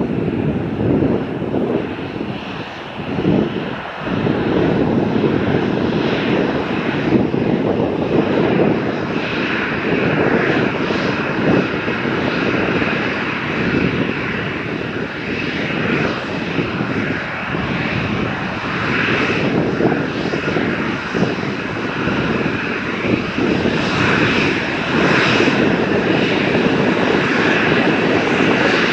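An airliner's engines running loud and close, a steady heavy rumble with a hissing roar on top that swells up about half a second in and holds.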